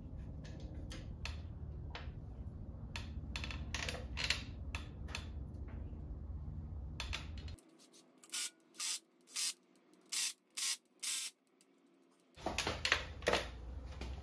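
Hand-tool work on an engine: light metal clicks and taps over a steady low hum, then six short rasping strokes about half a second apart, then more clicks.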